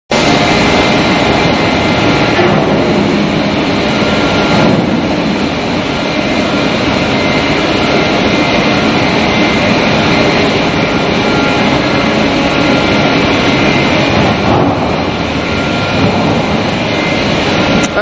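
Double-twist wire bunching machine running at speed: a loud, steady whir with thin, high, constant whining tones over it.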